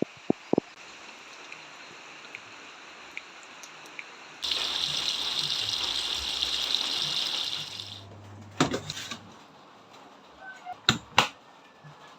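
Water running from a kitchen tap for about three and a half seconds, starting and stopping abruptly. A few sharp clicks and knocks sound before and after it.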